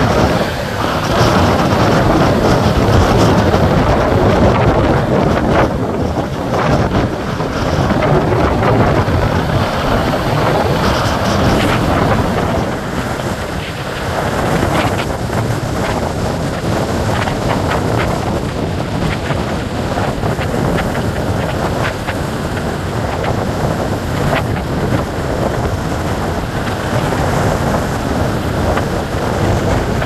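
Gale-force wind and heavy surf breaking on a beach: a loud, unbroken rush of wind and waves, with the wind buffeting the microphone.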